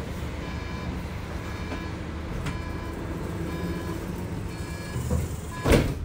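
Door-closing warning beeps of a Flexity tram, a short tone repeating about once a second over the low hum of the standing tram, ended near the end by the loud thud of the doors shutting.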